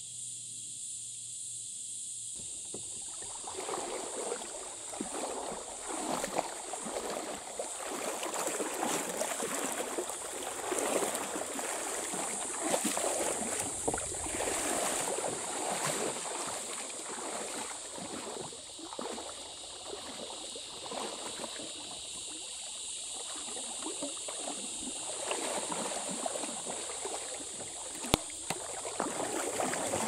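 Kayak being paddled upstream: paddle strokes splash, and the water rushes and laps along the hull in uneven surges, starting about two to three seconds in. A steady high-pitched insect drone runs underneath throughout.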